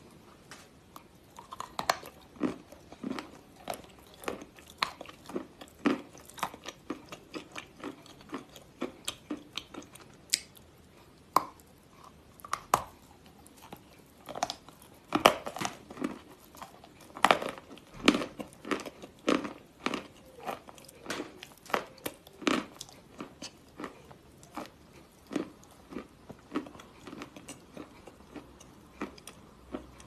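Crunchy bites and chewing of a white chalk block coated in green clay: a long irregular run of sharp crunches with softer chewing between them.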